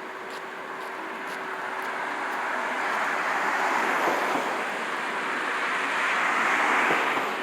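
Road vehicles passing close by, their noise swelling up twice and then easing off.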